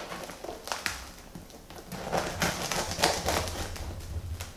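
Serrated MAC knife sawing back and forth through a crusty ciabatta loaf, the crust crackling in a series of short strokes.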